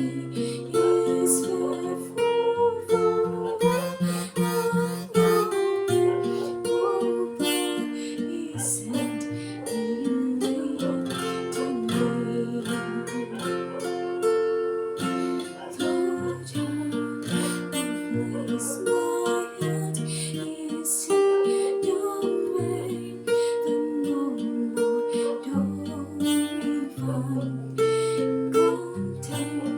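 Acoustic guitar music: plucked and strummed notes over a moving bass line, playing without a break.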